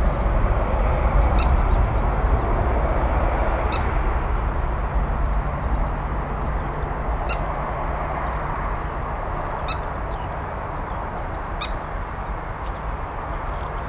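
Boeing 737-700's twin CFM56-7B turbofans at takeoff power: a steady jet roar that slowly fades as the airliner rolls down the runway and climbs away. Short, high bird calls sound about five times over the top.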